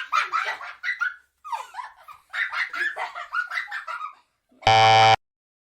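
A high voice babbling garbled, wordless syllables for about four seconds, then a short, harsh buzzer sound effect about half a second long near the end.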